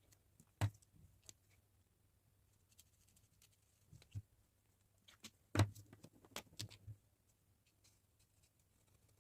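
A few sharp clicks and knocks from drawing pens being handled on a desk. The loudest come about half a second in and at about five and a half seconds, with a quick cluster of smaller taps just after.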